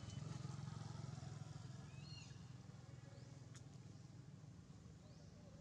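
Faint outdoor ambience dominated by a low steady engine hum, as of a motor vehicle at a distance, fading slightly. A short high chirp comes about two seconds in, and a single light click follows a little later.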